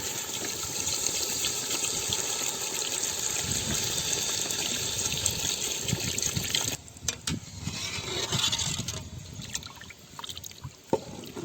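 Water poured into a cooking pot, the water for boiling the biryani rice. It is a steady pour for about six and a half seconds, then stops, and fainter scattered sounds follow.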